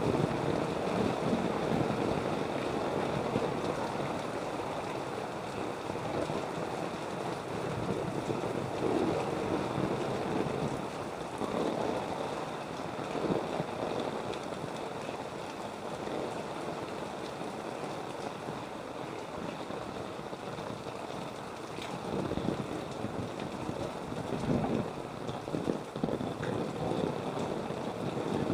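Flood water sloshing and splashing as someone wades through it, a continuous watery noise with irregular surges.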